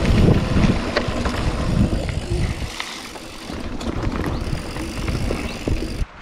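Mountain bike riding over a gravel forest trail: tyre and trail noise with short rattles and knocks from the bike, and wind buffeting the camera microphone, strongest in the first half. The sound drops away suddenly near the end.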